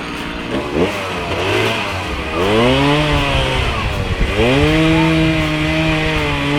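Chainsaw engine idling, then revved: a quick blip about half a second in, a climb to high speed, a short drop a little past the middle, then held at high speed.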